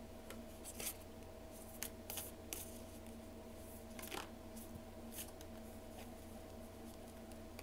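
A deck of tarot cards shuffled by hand, giving scattered soft flicks and card slaps, over a faint steady hum.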